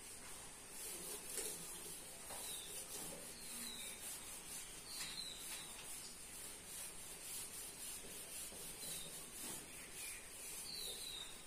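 Whiteboard duster wiping writing off a whiteboard: faint repeated rubbing strokes of the eraser pad across the board's surface.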